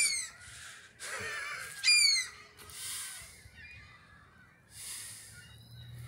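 Seagulls calling: two short, sharp falling cries, one at the start and a louder one about two seconds in, with fainter cries in between. Brief bursts of hiss come and go.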